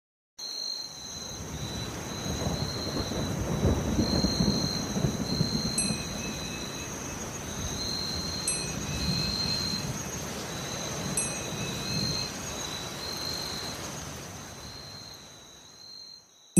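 Rain with thunder rumbling, starting about half a second in and fading out near the end. A soft chime sounds three times, about every two and a half seconds.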